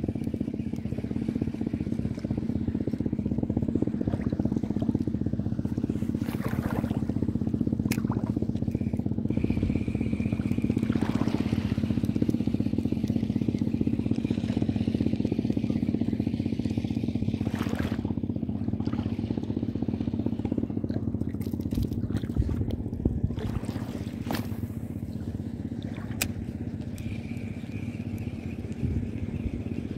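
A steady engine hum runs throughout, with a few sharp clicks from a spinning reel and rod being handled.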